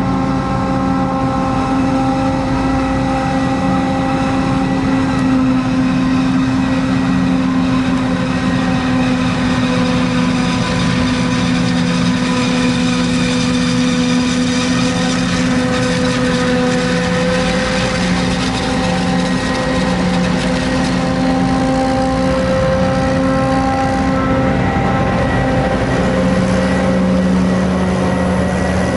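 Heavy diesel farm machinery of a corn-chopping team, a forage harvester and tractors with silage wagons, running steadily under load, with a constant hum of several steady tones that shift slightly in pitch now and then.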